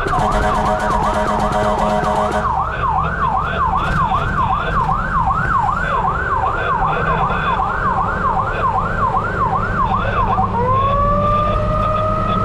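Fire truck siren on a fast yelp, sweeping up and down about twice a second, that switches near the end to a slow rising wail, over a low engine rumble. For the first two seconds a second steady tone with a rattle sounds over it.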